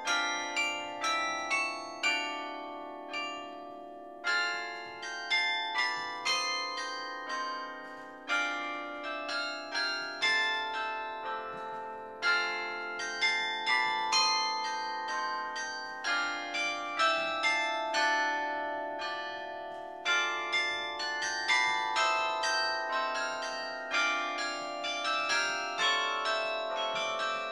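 Carillon bells played by hand from the baton keyboard: a running melody of struck bell notes, often several at once, each ringing on and dying away so the tones overlap in a sustained wash.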